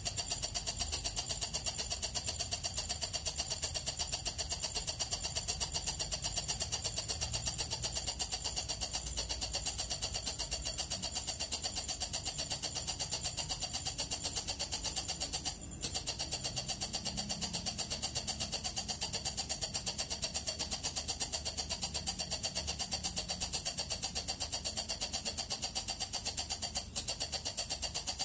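Walang kecek katydid singing: a continuous high-pitched trill made of fast, even pulses. It breaks off briefly about halfway through and dips once more near the end.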